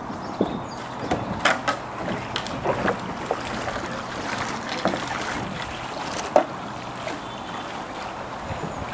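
Two paddlers getting into a two-person kayak and pushing off: irregular knocks and clunks of paddles against the kayak's hull, the loudest about six seconds in. A steadier sound of water and paddling follows as the knocks die away.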